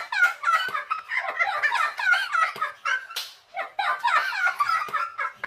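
Two women laughing loudly in high-pitched, breathless peals, with a brief pause about three and a half seconds in.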